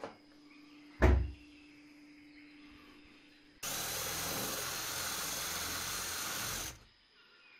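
Power drill running steadily for about three seconds, then stopping suddenly, as it bores a hole for the terrarium's rain system. A single sharp knock, the loudest sound, comes about a second in.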